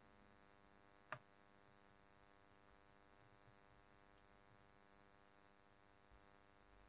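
Near silence: a faint steady electrical hum, with one short click about a second in.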